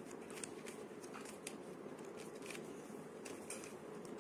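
Faint plastic clicking of a Twister Cube's layers being turned by hand: a quick, irregular scatter of small clicks over a low steady hum.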